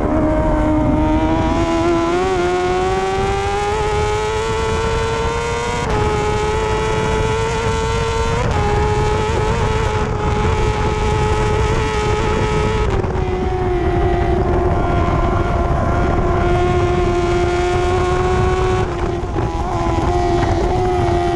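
On-board sound of a 1000cc superbike engine held at high revs at race speed over a heavy rush of wind. Its pitch climbs slowly with a few small jumps and dips.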